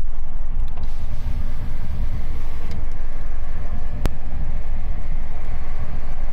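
Heavy truck's diesel engine and tyre noise heard inside the cab while driving, a steady low rumble. A single sharp click about four seconds in.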